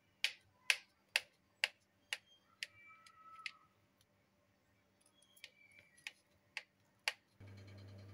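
Knife slicing a soft steamed rava dhokla, its blade clicking sharply against the plate at each cut, about two clicks a second in two runs. A steady low hum starts near the end.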